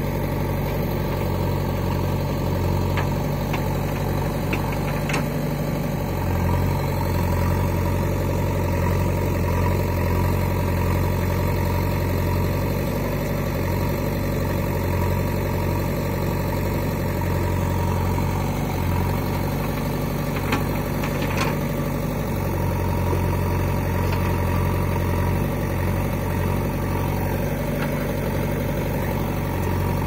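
JCB 3DX backhoe loader's diesel engine running steadily as the backhoe digs soil, its low hum growing stronger and weaker as it works. A few brief knocks sound now and then.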